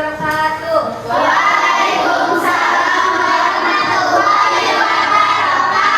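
A class of children's voices together, loud and in unison, starting about a second in and holding steady.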